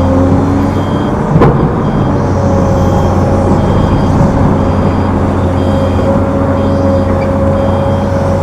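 Heavy earthmoving machinery's diesel engines running steadily, with a reversing alarm beeping about once a second. A single sharp clank about a second and a half in.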